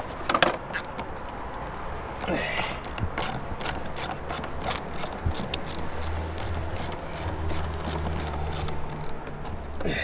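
A 10 mm socket ratchet clicking as it spins the nut off the car battery's negative terminal clamp, in a long run of quick, uneven clicks, with a sharp knock of the tool right at the start.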